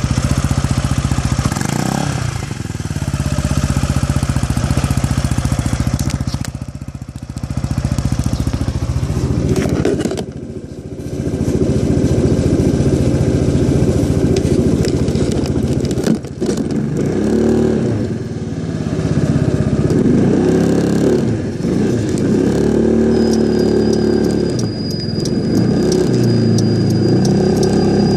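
Yamaha SMAX scooter engine running and being revved up and down repeatedly, with the abnormal noise (異音) the owner is recording. A thin, steady high whine joins in about 23 seconds in.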